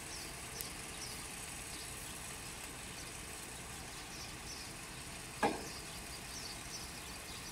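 Steady low background noise with faint, high chirps repeating throughout, and a single short knock about five and a half seconds in.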